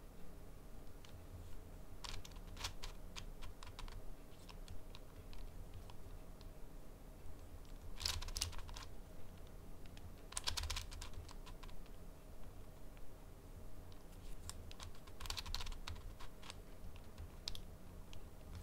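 Plastic 5x5 speedcube being turned by hand: short bursts of clicking layer turns, a few seconds apart, with quiet pauses between.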